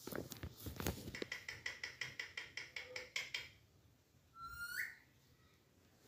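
Alexandrine parakeet cracking and nibbling food with its beak in a quick run of clicks, then a rapid string of pulsed chattering notes for about two seconds. A short rising whistle follows near the end.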